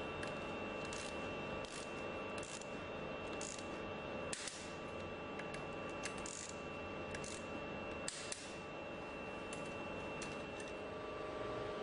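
Irregular metallic clicks and short scraping strokes from a hand tool working on the steel drive shaft of a progressive cavity pump, over a steady background hum with a high whine.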